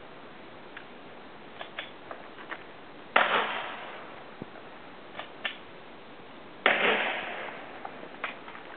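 Two pistol shots about three and a half seconds apart, one about three seconds in and one near the end, each with a long ringing tail that fades out; faint ticks in between.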